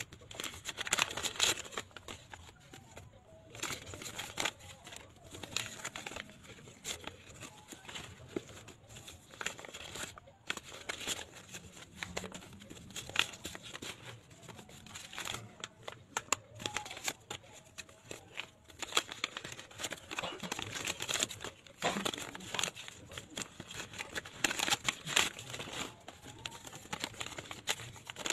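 Paper envelopes being opened and paper banknotes rustling and crinkling as they are pulled out and handled, in irregular bursts, with now and then a short tearing sound.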